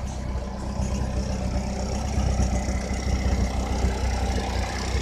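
1986 Pontiac Fiero's 2.5-litre Iron Duke four-cylinder idling steadily after about ten years sitting, with some rattling that the owner puts down to the valve train.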